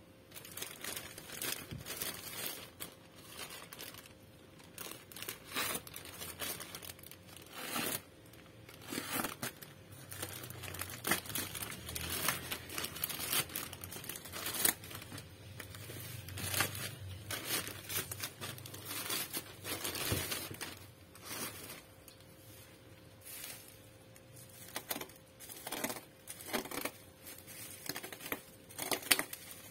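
Plastic courier mailer bag and black bubble wrap being cut and torn open by hand: irregular crinkling, rustling and tearing of plastic.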